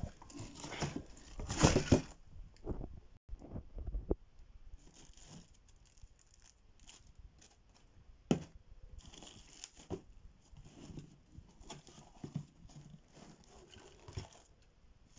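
Cardboard shipping box being torn open by hand: packing tape and cardboard flaps ripping loudly for the first two seconds, with a few more tears up to about four seconds in. After that comes quieter rustling and crinkling of the plastic bubble wrap inside, with a few sharp clicks.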